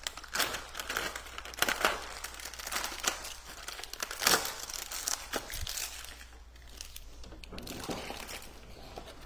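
Thin clear plastic clamshell produce container being opened and handled: irregular crinkling and crackling of the plastic, with a few louder crackles in the first half and quieter handling near the end.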